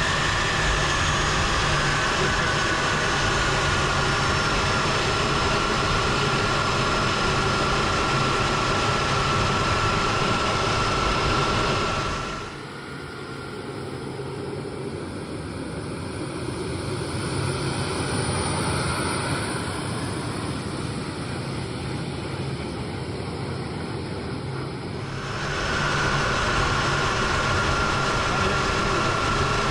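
KC-135 jet engines running, heard from the cockpit: a steady rush with a high whine that slowly drops in pitch. For about twelve seconds in the middle the sound turns quieter and duller, then the engine rush and whine come back.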